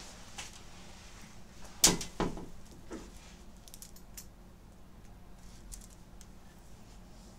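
Metal chain choker being handled: two sharp clicks close together about two seconds in, then a few faint light ticks.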